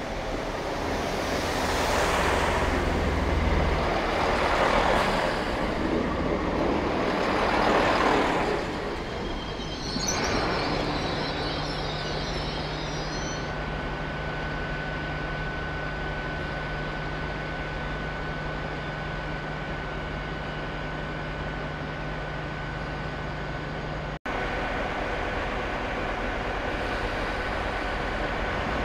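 Class 166 Turbo diesel multiple unit running in along the platform, its passing noise swelling three times. Brakes squeal briefly as it slows, then its underfloor diesel engines run steadily with a low hum and a thin high whine while the train stands.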